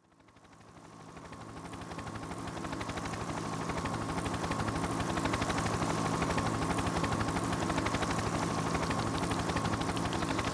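Instrumental intro of a backing song fading in from silence over the first few seconds, then holding steady: a sustained tone over low held notes and a rapid, even pulse.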